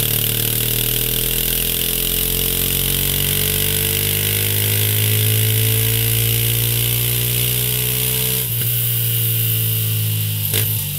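Suzuki Van Van 200's single-cylinder engine running through a Mivv GP exhaust under load on a roller dyno. The revs climb slowly and steadily, then dip sharply and climb again twice, about eight and a half seconds in and near the end.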